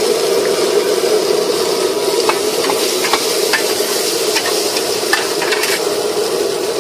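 Food sizzling on a large round flat pan while a metal spatula scrapes and taps against it, with short knocks from about two seconds in until nearly the end.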